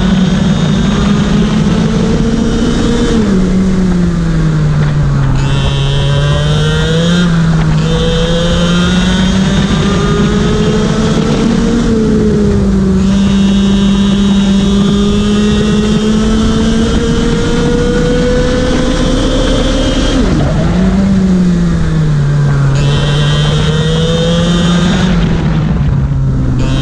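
IAME X30 125cc two-stroke kart engine at racing speed. Its pitch climbs steadily on the straights and drops sharply under braking into corners, several times over.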